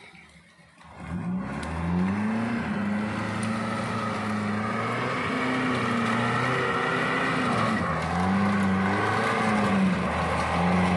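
Off-road 4x4's engine running hard under load as the vehicle climbs through thick undergrowth, starting about a second in, its pitch rising and falling with the throttle.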